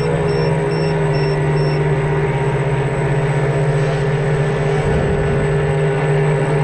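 Model boat's drive motors and propellers running steadily under way, heard from on board as a constant hum with a held higher whine above it.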